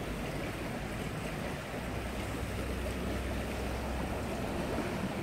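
Steady rush of flowing river water, with a low rumble underneath.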